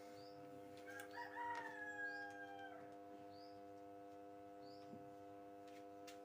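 A rooster crowing faintly once, a call of nearly two seconds that falls in pitch at its end, over a steady faint hum.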